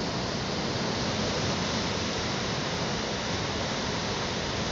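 Ocean surf breaking on a sandy beach: a steady rush of waves and foam.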